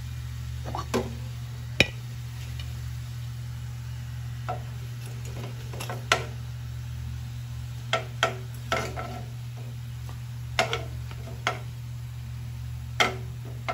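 Metal tongs clicking and tapping against a frying pan and a ceramic plate as fried rolls are lifted out of the oil onto paper towels. There are about eight sharp, irregular taps over a steady low hum.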